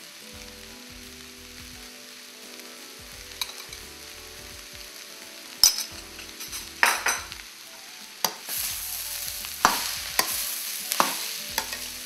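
Potato and vegetable samosa filling frying in a stainless steel wok with a faint steady sizzle. About halfway in, a metal spoon starts stirring and scraping the mixture, and there are sharp clinks of spoon on pan.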